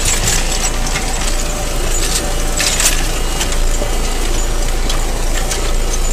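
34-year-old Kverneland mouldboard plough cutting through stony soil: earth and stones scraping and clattering against the plough bodies, with a few louder rasping scrapes, over the steady running of the tractor pulling it.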